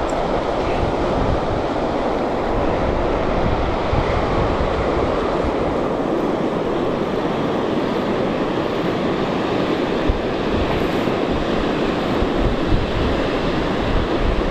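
Wind buffeting the microphone over a steady rush of choppy water.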